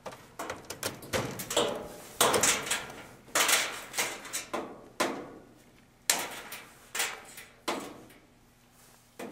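Clanks and rattles from a clothes dryer's sheet-metal cabinet and control console being worked on by hand as its wiring harness and ground wires are pulled loose: a string of about ten separate knocks and scrapes.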